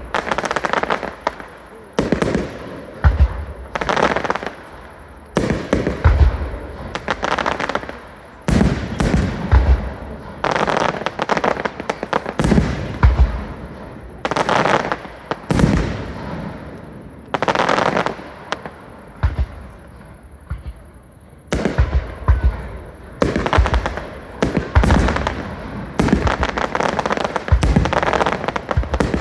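Fireworks display: shells bursting in quick succession, a bang every second or two with crackle and echo after each, and a brief lull about twenty seconds in.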